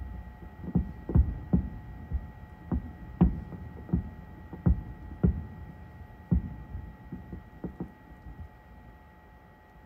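Aerial fireworks shells bursting in a rapid, irregular series of deep booms, about a dozen in all, thinning out and growing fainter near the end.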